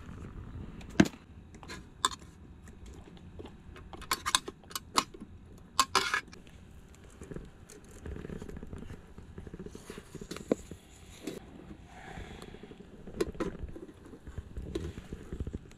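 Metal camp cookware being handled: scattered clinks and knocks of a steel pot and an aluminium mess tin on a small gas stove, with a cluster of brighter metallic clanks about four to six seconds in.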